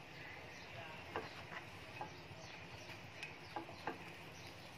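Butter sizzling faintly in a pan as pav bread rolls are warmed in it, with a few small crackles scattered through.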